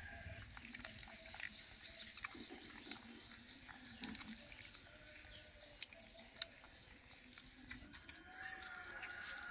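A litter of puppies suckling at their mother dog: faint, irregular wet smacking and clicking sounds of nursing.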